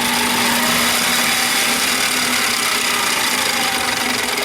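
Mini lathe running at speed, spinning its freshly cleaned and oiled three-jaw chuck to fling off the excess oil. A steady motor-and-gear whine, starting to wind down near the end.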